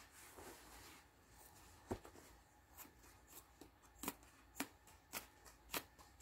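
Scissors cutting through a piece of cloth: a faint rustle at first, then a run of sharp snips about every half second from about two seconds in.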